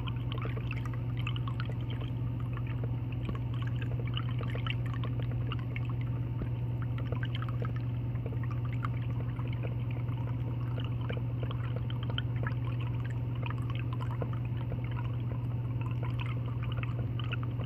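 Garden water fountain with a spinning ball, water splashing and trickling steadily, over a constant low hum.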